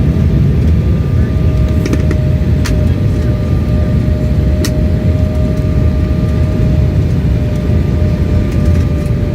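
Airliner heard from inside the cabin: a steady, heavy low rumble with a constant mid-pitched whine over it and a few faint clicks.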